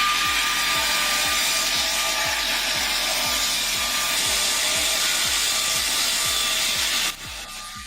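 A machine cutting wood, running steadily with a noisy whine and a steady high tone, then cutting off suddenly about seven seconds in. A background music beat thumps about twice a second underneath.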